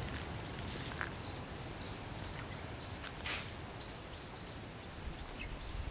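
Tropical outdoor ambience: birds chirping in short high calls about twice a second over a steady high insect whine, with low wind rumble on the microphone. There is a brief scuff about a second in and a louder one a little past three seconds.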